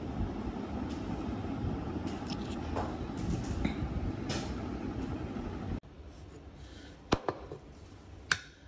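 Close handling noise, a low rustling rumble with small ticks, as a bottle cap is turned over in the hand in front of a phone microphone. It cuts off suddenly, and a few sharp clicks follow as an aerosol spray can is handled.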